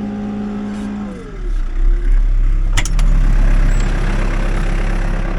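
Backhoe diesel engine running steadily. About a second in its speed drops with a falling pitch, then it settles into a lower, louder rumble, with a couple of sharp clicks near the middle.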